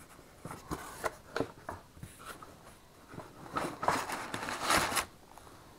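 Cardboard box and crumpled kraft packing paper rustling and crinkling as a boxed part is lifted out, with a few light knocks early on and the loudest rustle between about three and a half and five seconds in.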